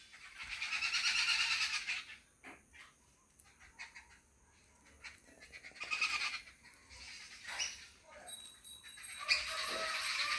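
Animal calls: a long harsh call in the first two seconds and a shorter one about six seconds in, then bird chirping and twittering that builds up near the end.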